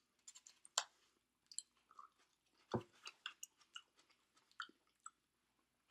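A person chewing Chinese takeout food, with scattered short mouth clicks and a few soft crunches.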